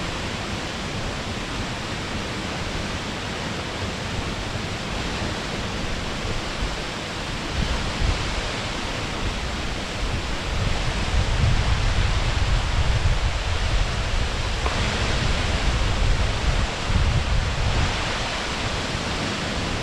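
Waterfall: a steady rush of falling water, with a deeper rumble that grows stronger about halfway through.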